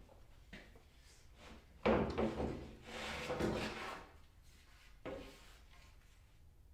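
A plywood board being handled. It knocks about two seconds in, then scrapes and slides for a couple of seconds, and there is another knock about five seconds in.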